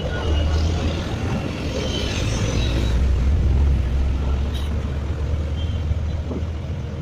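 Engine of a moving passenger vehicle running with a steady low rumble, mixed with road and traffic noise coming in through an open window.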